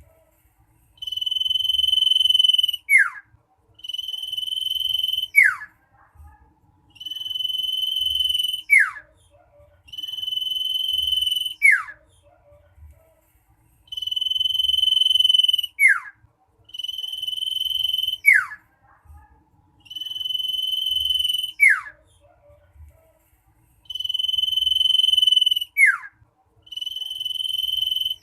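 Common iora singing loudly and insistently: long steady whistles, each followed by a quick downward-sliding note, repeated every two to three seconds.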